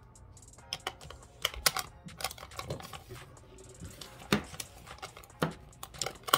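Irregular sharp clicks and taps of small plastic makeup items, pencils and caps, being handled and knocked together close to the microphone. The loudest taps come about one and a half seconds in and just after four seconds.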